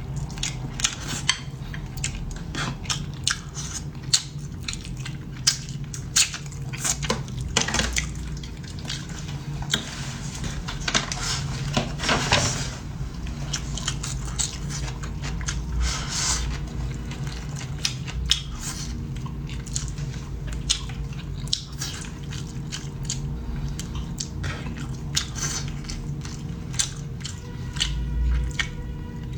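A person chewing and biting food close to the microphone, with short clicks and knocks of chopsticks or utensils against bowls and dishes, over a steady low hum.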